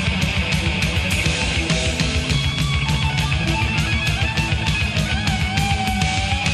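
Thrash metal recording: distorted electric guitars over fast, even drumming, with a lead guitar line that holds a note near the end.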